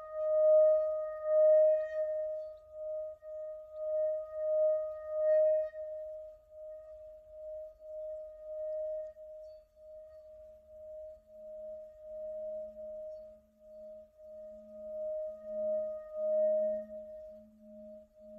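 Tibetan singing bowl ringing after a strike with a felt mallet, its tone swelling and fading in slow pulses while the higher overtones die away. About ten seconds in, the wooden mallet handle rubbed around the rim brings up a deeper, pulsing hum that grows louder.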